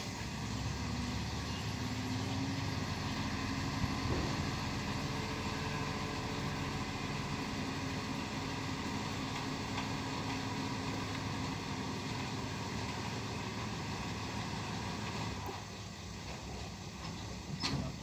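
Dump truck's diesel engine held at raised revs while the hydraulic hoist lifts the tipper bed, dropping to a lower note about fifteen seconds in. A single sharp click near the end.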